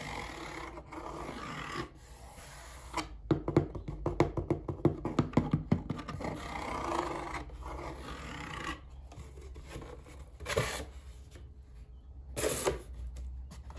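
Hands opening a taped cardboard delivery box: packing tape crackling in a quick run of clicks as it is peeled off, and cardboard rubbing and scraping as the flaps are pulled open.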